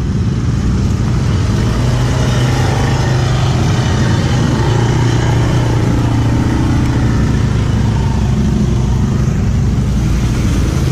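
ATV engine running steadily under load as the quad drives through a muddy creek, with water churning around the wheels.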